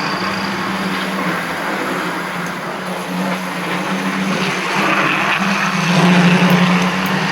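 Tri-ang Blue Pullman OO-gauge model diesel train running on the layout: the power bogie's motor hums steadily while the wheels rattle over the rails, getting louder about six seconds in as it comes closer.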